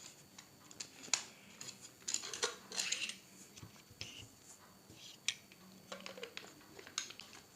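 Hands working a 3-way monopod grip and mini-tripod, unscrewing and opening it out from the bottom: scattered light clicks and short scrapes.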